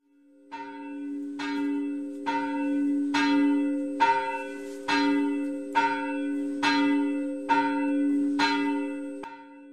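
A single church bell tolling, struck about eleven times at an even pace a little under a second apart, its hum ringing on between strokes. It fades in at the start.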